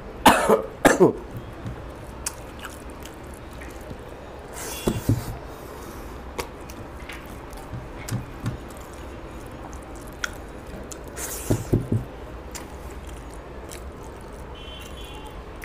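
Close-miked chewing and wet mouth sounds of a man eating rice and fish curry by hand, with many small clicks and smacks. A few short, louder mouth noises stand out, the loudest in the first second, others about 5 and 12 seconds in.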